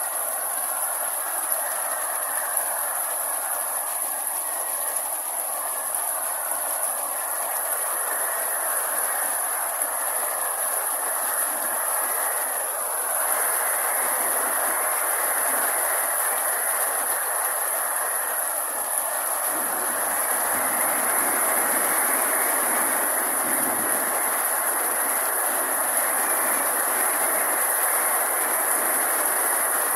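Steady rain falling, a continuous even hiss that grows louder about a third of the way in and again about two-thirds in, with a thin high-pitched hiss held above it throughout.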